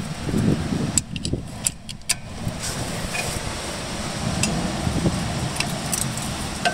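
Light metallic clinks of a combination wrench against a rear brake caliper bolt as it is fitted and turned, several close together about a second in and fainter ones later. A steady low rumble runs underneath from about two and a half seconds in.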